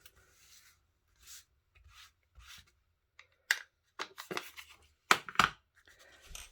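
Ink blending tool rubbed over card stock in short repeated strokes, soft at first, with several sharper, louder scrapes in the second half.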